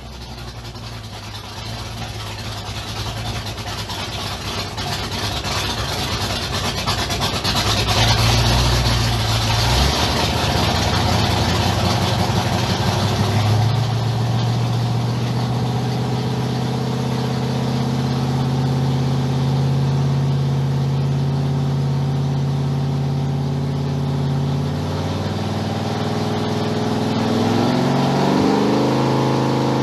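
Boostpower 625 hp V8 racing engine running on an engine dyno. Its sound grows louder over the first several seconds, the pitch steps up twice, it holds a steady speed, and it revs up again near the end.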